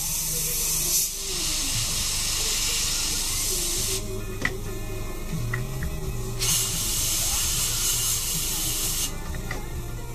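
Airbrush spraying paint onto a model airplane, a steady high air hiss. It stops about four seconds in and starts again about two seconds later for nearly three seconds.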